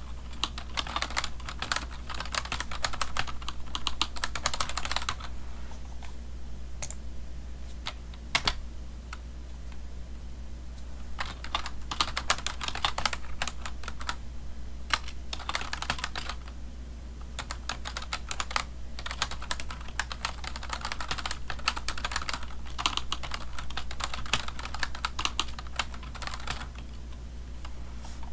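Typing on a computer keyboard: rapid key clicks in runs of several seconds, broken by a pause of about six seconds with only a few single key presses.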